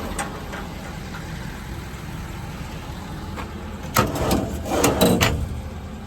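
Truck engine idling steadily, with a quick run of clunks and rattles about four seconds in.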